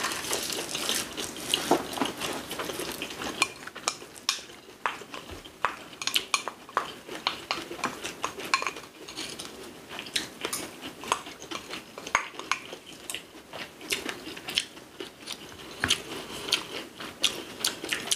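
Cutlery clinking against bowls and plates in irregular light clicks as people eat, with some chewing.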